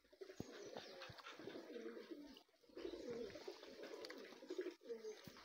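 Faint bird calls, low-pitched and repeated, with a few soft clicks.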